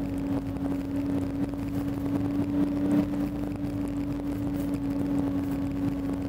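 Engine of a tracked over-snow bandwagon running steadily while driving, heard from inside the cab: an even drone with one strong humming tone.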